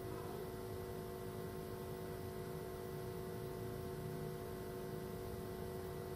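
Faint steady hum and hiss of room tone, with a few thin steady tones and no distinct handling noises.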